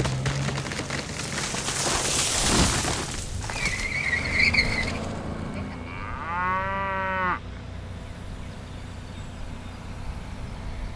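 A cow moos once, a single call of just over a second, a little past the middle. Before it, a rushing noise swells and fades over the first few seconds, with a brief high squeal about four seconds in.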